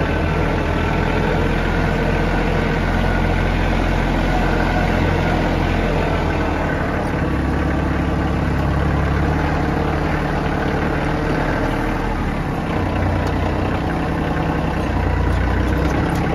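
Tractor engine running steadily at raised throttle while working its front-end loader, lifting a bucket of manure and tipping it over a spreader.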